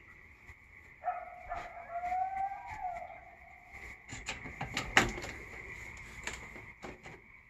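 A coyote howling: one long wavering call about a second in, rising slightly and then dropping away. A steady high-pitched tone runs underneath, and several sharp clicks and knocks follow, the loudest about five seconds in.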